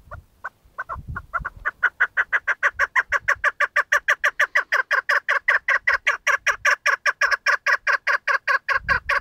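Chukar partridge calling: a long run of clucking notes that begins slowly and quickly speeds up to about seven notes a second, then keeps on at that pace.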